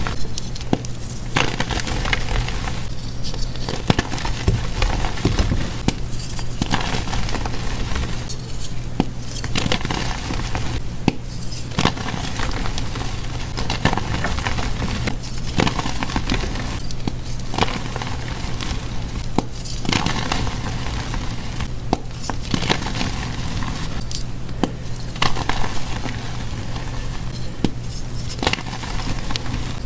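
Blocks of gym chalk being crushed and crumbled between the fingers into loose powder: dense, continuous crunching and crackling made of many small crisp snaps.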